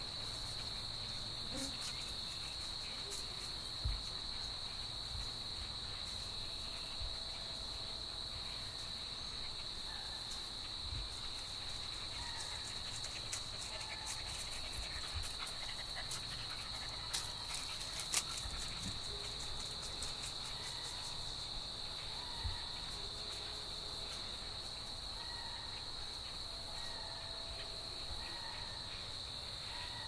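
Continuous high-pitched trilling of singing insects in the woods, one steady unbroken tone, with a few faint soft knocks scattered through it.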